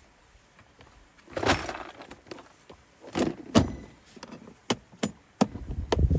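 Irregular knocks, clacks and rustling of things being handled, with two longer rustling bursts in the first half and a quicker run of sharp knocks near the end.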